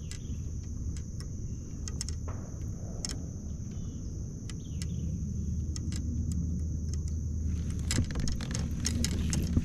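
Wind rumbling on the microphone, growing stronger about halfway through, over a steady high insect drone. Scattered clicks and rattles from the baitcasting reel and rod as line is reeled in come thick and fast near the end.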